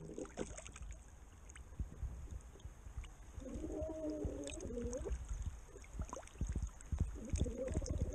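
Shallow river water splashing and sloshing around a fish being held and handled at the surface, with low knocks and bumps close to the microphone. Twice, about halfway through and again near the end, a muffled wavering warble rises and falls over the water noise.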